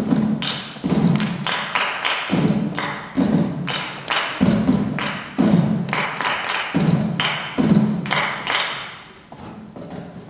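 Rhythmic percussive thumps in groups of about four quick strokes, a new group every two seconds or so, in a chugging pattern like train wheels. They die down near the end.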